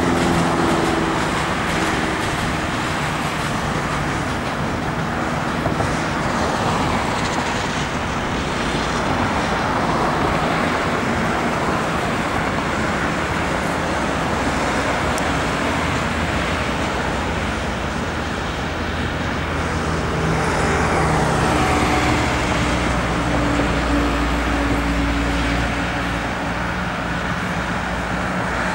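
Steady rumble of road traffic, with a metro train running past at the start. A deeper, louder low rumble builds about twenty seconds in and fades a few seconds later.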